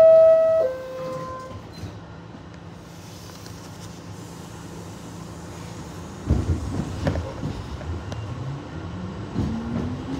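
R62A subway car's two-note door chime, a higher note falling to a lower one, then a low steady hum. About six seconds in the doors bang shut with a run of clunks. Near the end a rising whine from the traction motors as the train starts to pull away.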